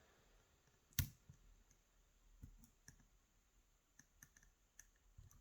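Faint, scattered clicks and ticks of a lock pick and tension tool working the pin stack of a mortise lock cylinder, with one sharper click about a second in.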